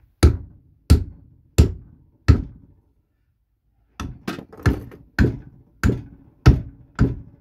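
Four-pound lump hammer striking an HDPE catapult frame clamped in a bench vise: four heavy blows about two-thirds of a second apart, a pause of over a second, then about seven more at quicker intervals. The 12 mm HDPE takes the blows without breaking.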